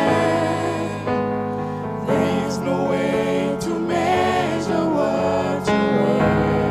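A gospel song: voices singing over keyboard accompaniment.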